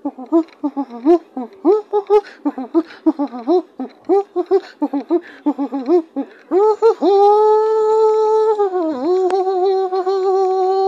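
A person's high-pitched voice making quick, laugh-like syllables that rise and fall, then holding one long hummed or sung note with a brief dip in pitch partway through.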